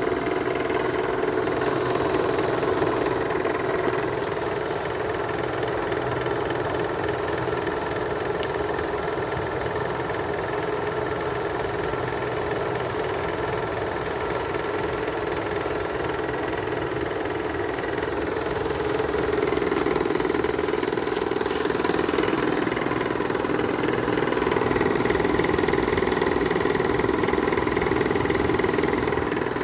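2000 Whirlpool window air conditioner running on cool, its compressor humming steadily under the fan. The fan motor's shot bearings add a loose-bearing noise. The sound swells a little about two-thirds through and again near the end.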